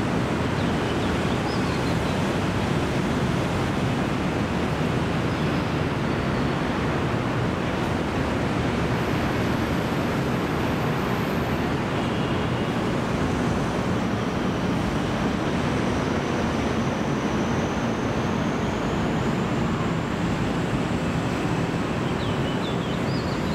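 Steady, even rushing city background noise with no distinct events.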